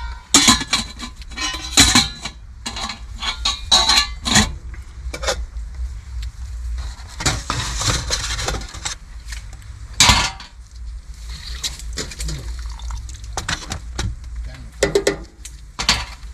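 Dishes, food containers and utensils being handled, a series of short sharp clinks and knocks at irregular intervals.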